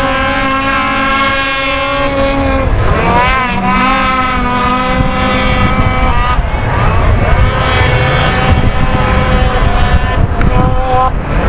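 Several racing snowmobiles climbing a snow slope, their engines running together at steady, high pitches. The pitches waver and shift about three seconds in and again a few seconds later.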